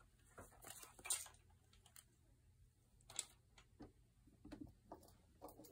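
Near silence broken by a few faint, scattered light clicks and rustles of handling, the clearest about a second in and about three seconds in.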